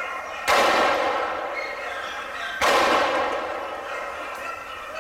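Two shotgun shots about two seconds apart, the first about half a second in, each with a long fading echo.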